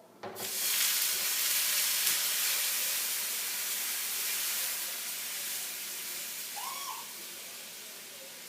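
Water hitting a hot frying pan in the sink, hissing and sizzling into steam. The hiss starts abruptly and slowly fades.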